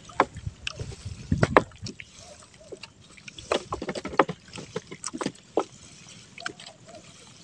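A wet trammel net being hauled hand over hand into a small boat, with water splashing and dripping off it and irregular knocks against the hull, loudest in the first couple of seconds.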